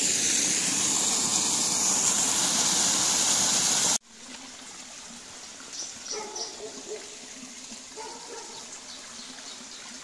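Small waterfall in a ravine stream, a loud steady rush of falling water. About four seconds in it cuts off abruptly to the much quieter trickle of the stream.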